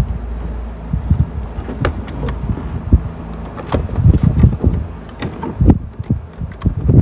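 Car stereo wiring-harness plug connectors and the metal head-unit chassis being handled, with a few sharp plastic clicks among irregular dull bumps.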